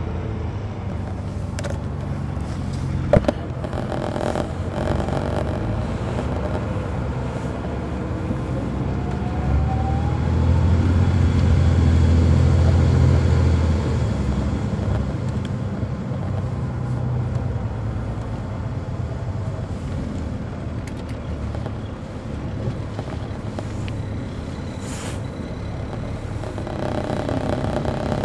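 A 2007 MCI D4500CL coach's Caterpillar C13 ACERT diesel engine, heard from inside the bus, running steadily. It grows louder for a few seconds about a third of the way in, then eases back. There is one sharp click about three seconds in.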